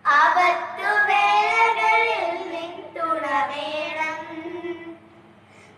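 Children singing a Malayalam Christian devotional song together in two phrases, the second trailing off about five seconds in.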